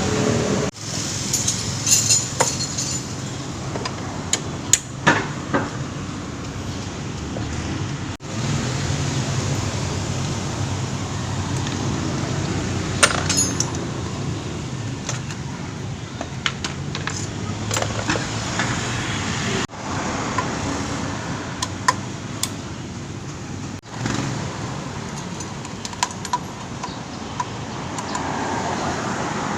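Scattered metallic clinks and taps of hand tools and engine parts being handled during scooter engine disassembly, over a steady low background hum.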